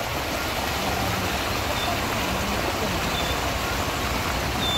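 Steady road and vehicle noise with engines running, a continuous rumble and hiss with a low hum underneath. A few faint short high chirps come through about two and three seconds in and again near the end.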